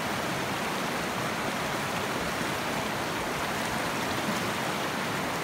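Shallow mountain river flowing steadily over rocks, a constant rushing of water.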